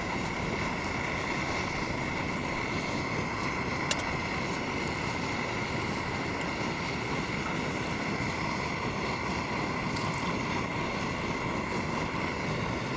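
Portable gas stove burner running with a steady rushing hiss, heating a ready-made meal.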